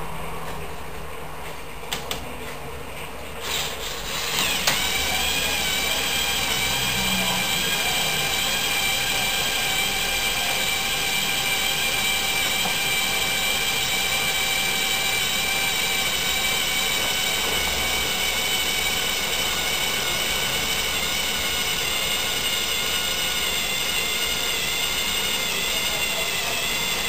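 LEGO Technic Power Functions electric motor running through its plastic gears: a couple of clicks, then a steady whine that rises briefly in pitch as it starts about four and a half seconds in, holds, and cuts off suddenly near the end.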